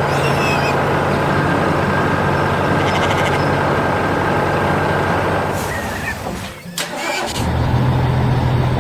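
Heavy construction-vehicle engine running with a steady hum. It fades, cuts out for a moment about two-thirds of the way through, and starts up again.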